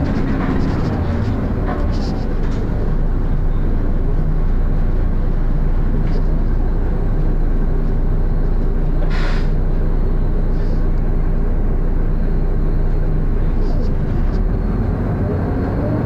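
Volvo B7RLE bus's six-cylinder diesel engine running, heard from inside the saloon, with one short burst of air hiss about nine seconds in. Near the end the engine note starts to rise as the bus pulls away through its ZF automatic gearbox.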